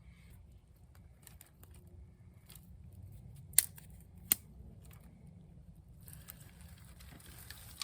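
Small sticks of kindling being handled, with scattered light clicks and rustling and two sharp snaps between three and four and a half seconds in, then a spell of rustling near the end.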